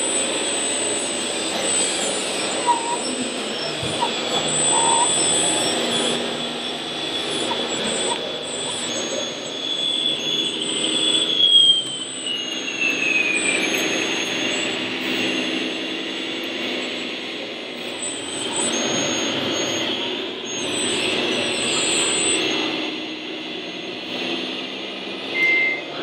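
Radio-controlled scale construction machines and trucks running, with a mix of model motor whine and engine-like sound. A steady high whine slides down in pitch about twelve seconds in.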